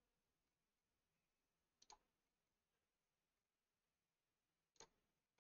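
Faint computer mouse clicks over near silence: a quick double click about two seconds in and a single click near the end.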